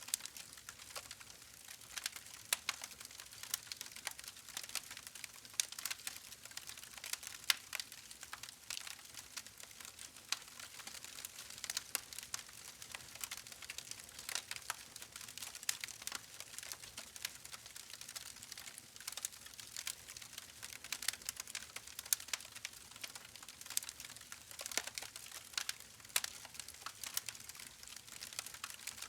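Campfire burning with a faint hiss and a steady stream of irregular small crackles and pops from the burning wood.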